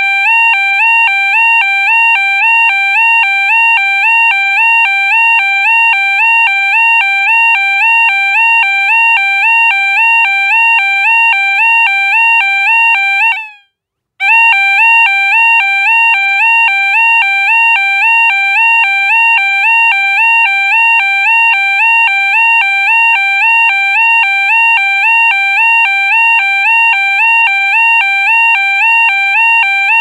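Loud electronic alarm tone: a buzzy note that flicks rapidly back and forth between two close pitches, repeating without change. It cuts out for about half a second about halfway through, then resumes.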